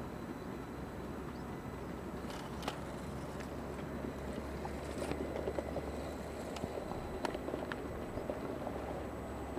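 RC4WD Riinox rock crawler with Bully motor-on-axle axles working its way over rocks: scattered sharp clicks and knocks of tyres and chassis on stone, more of them after the first couple of seconds, over a steady rushing noise.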